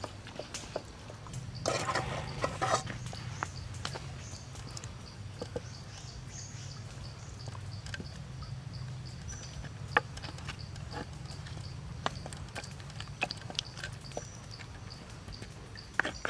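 Close handling sounds of basting a raw chicken with a frayed stalk brush and tongs: soft wet dabbing and scattered small clicks, with a denser rustling burst about two seconds in. Under it runs a low steady rumble and a faint high chirp that repeats a few times a second.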